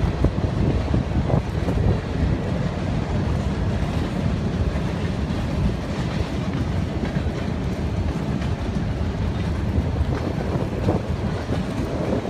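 Storm wind buffeting the microphone: a steady, low, rumbling noise.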